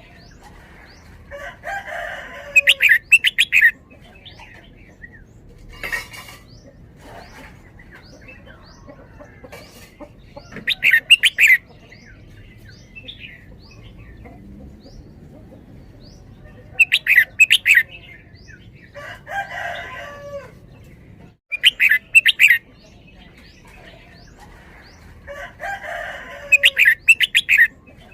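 Red-whiskered bulbul singing short, loud phrases every few seconds, in the doubled-note style the uploader calls "double double" (เบิ้ลเบิ้ล). Each phrase is a burbling warble followed by two quick runs of sharp notes, with faint chirps in between.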